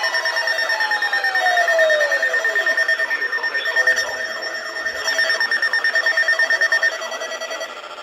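Several weather alert radio receivers sounding electronic alert tones at once: overlapping steady tones that beep in a rapid pulsing rhythm, with one tone sliding down in pitch over the first three seconds. This signals an incoming severe thunderstorm warning.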